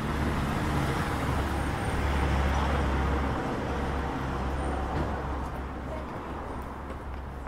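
Street traffic: a motor vehicle's engine running close by with a low steady hum over road noise, loudest two or three seconds in and then fading away.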